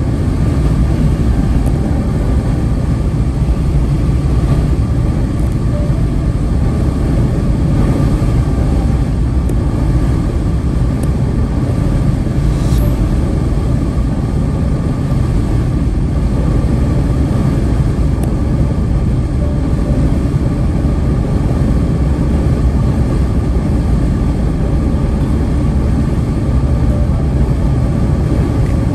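Steady low rumble of a car driving at highway speed on a wet, snowy road, heard from inside the cabin: tyre and engine noise.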